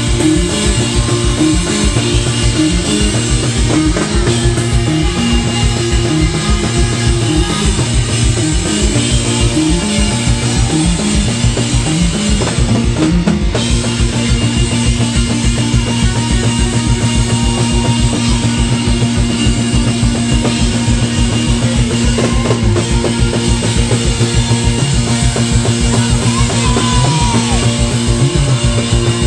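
A rock band playing loud and live, with a fast steady drum beat under bass and electric guitar. A stepping riff gives way to a long held chord about halfway through.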